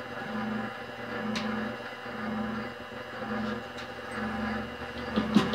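Grizzly G0769 combination lathe-mill running at 300 RPM, a steady hum that swells about once a second, with a few light metallic clicks. Near the end a fast rhythmic knocking starts, about four or five beats a second.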